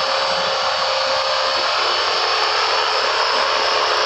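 500-size RC helicopter with a scale Hughes 300C body in flight: a steady, even whine of motor and rotor over a broad hiss.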